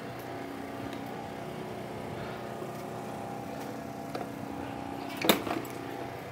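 A steady low hum of several held tones, with one sharp click about five seconds in.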